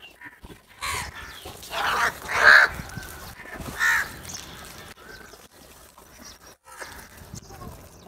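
House crows cawing: a run of harsh calls in the first half, the loudest about two and a half seconds in, and fainter calls near the end.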